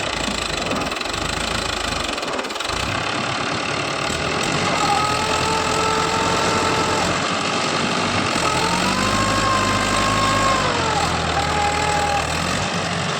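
Tractor engine running continuously, with a whining tone that rises and falls in pitch as it revs.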